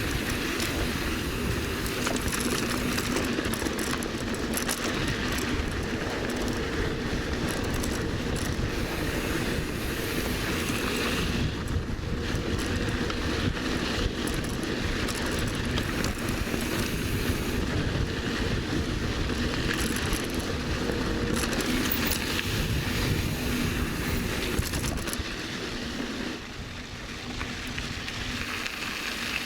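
Wind rushing over the microphone along with the rumble of mountain bike tyres rolling over a dirt trail while riding. The low rumble falls away near the end.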